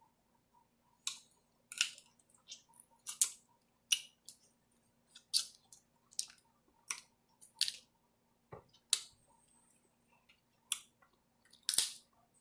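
Close-miked eating sounds of a seafood boil with snow crab: irregular sharp smacks and crackles of chewing and handling the food, about one or two a second, over a faint steady hum.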